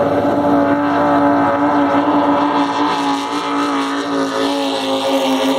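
Offshore racing powerboat passing at speed, its engines a loud, steady drone that slowly drops in pitch near the end.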